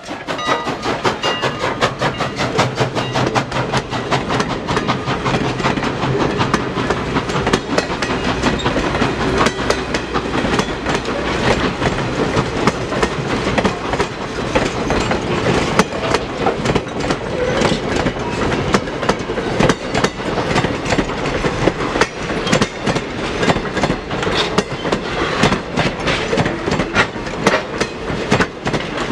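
Railroad passenger coaches rolling past close by, their steel wheels clicking over the rail joints in a fast, steady clickety-clack over a continuous rumble.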